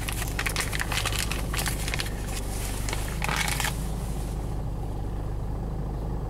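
Jeep Liberty CRD's 2.8-litre four-cylinder turbodiesel idling steadily, heard from inside the cab. Over the first three and a half seconds or so there is a dense crinkling and rustling from a plastic parts bag and a sensor being handled; after that only the idle remains.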